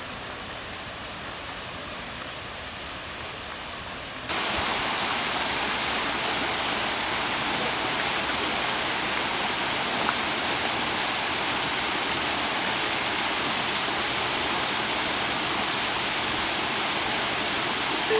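Steady rushing of running water, stepping louder and brighter about four seconds in.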